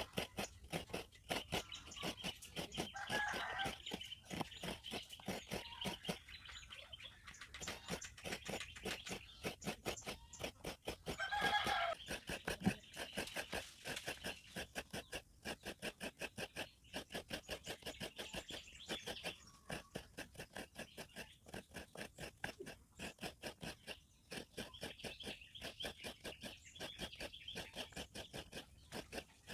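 Fresh coconut flesh being scraped out of the half-shell on a coconut scraper blade, a fast, even rhythm of rasping strokes throughout. A hen clucks twice, about 3 s and 11 s in, over birds chirping.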